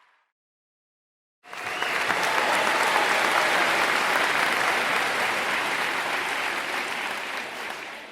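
A crowd applauding: dense clapping that starts abruptly about a second and a half in, holds steady, and begins to fade near the end.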